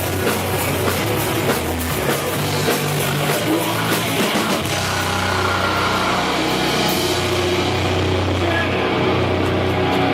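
Live heavy rock band playing: drums with guitars and bass for the first few seconds, then the drum hits stop about halfway through and a held chord rings on.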